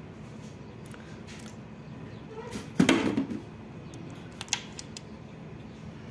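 Metal engine parts clinking as rocker arms are pulled from an open cylinder head and handled. There is one loud clattering knock of metal on metal about three seconds in, then a couple of sharp clicks, over a steady low hum.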